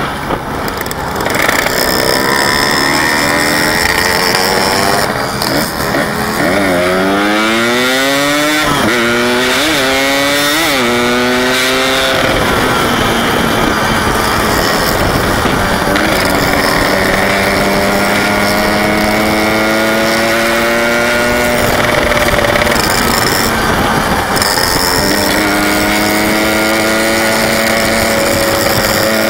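Yamaha RX-King 135cc two-stroke single-cylinder engine under riding load. It revs up through several quick gear changes, each a rising whine that drops at the shift, then holds a steady cruising note and picks up again near the end, over constant road and wind noise.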